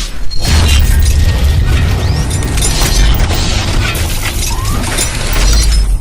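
Loud intro music with heavy bass and crashing, glass-shattering sound effects.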